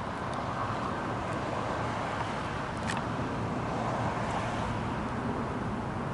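Steady outdoor background rumble, swelling a little past the middle, with a single faint click about three seconds in. No horn sounds.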